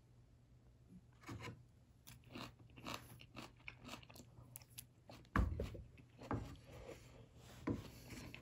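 A person chewing food close to the microphone: irregular short clicks of biting and chewing, with a louder knock about five seconds in.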